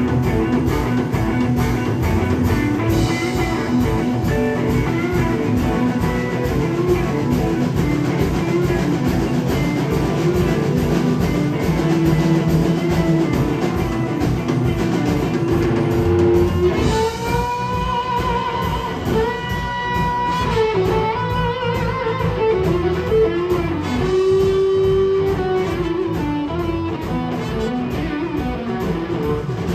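Live blues-rock band playing: guitar over a steady drum-kit beat. About halfway through, a lead line with bending notes comes to the front.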